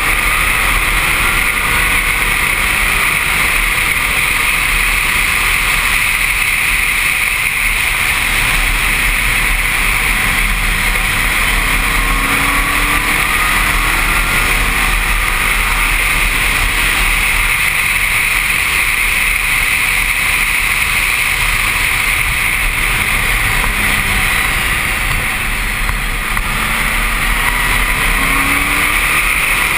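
Open-cockpit 300 hp Pescarolo prototype race car at speed, heard from a helmet camera: a loud, steady rush of wind over the helmet mixed with the engine, whose note rises faintly now and then as the car accelerates.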